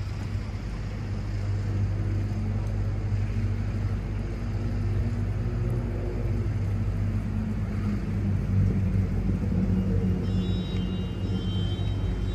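A motor engine running steadily: a low, even hum, a little louder in the second half.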